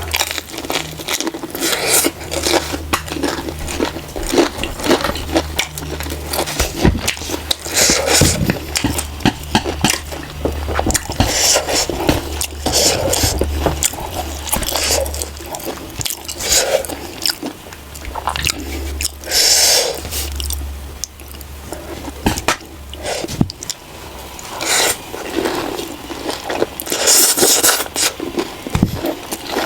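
Close-up eating sounds: chewing and crunching food, with utensils scraping and clicking against a dish at irregular moments.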